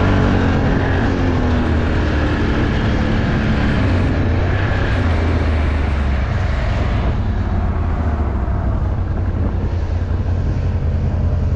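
Off-road vehicle engine running steadily while riding a muddy trail, with a constant low rumble; its pitch eases down in the first second or so, and the sound turns duller and more noisy about halfway through.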